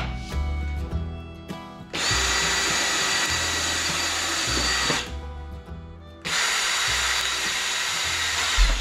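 Cordless drill running in two runs of about three seconds each, with a steady high whine, drilling into a small aluminum bracket on the bench.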